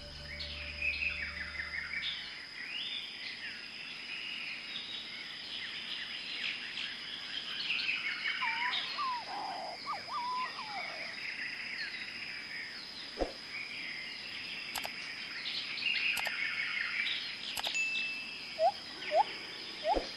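Several wild birds calling: many quick high chirps throughout, a few lower gliding whistles about halfway, and loud short rising calls near the end, over a steady high-pitched tone.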